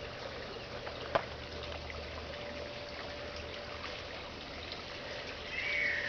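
Water trickling steadily, from a small rock garden water feature. A single light click about a second in and a short falling call near the end.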